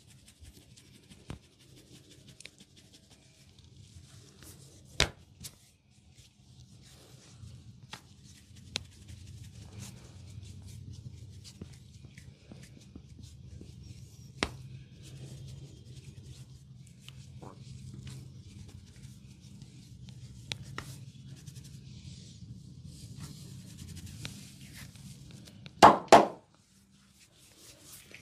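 Hands rubbing and scratching through a man's wet hair and scalp in a head massage, with a few sharp clicks along the way. Two loud smacks come close together near the end.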